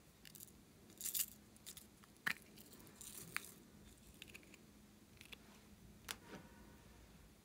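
A small plastic owl-shaped toy being handled and pulled apart: faint, scattered plastic clicks and rustles, with sharper clicks a little over a second in, a little over two seconds in and about six seconds in.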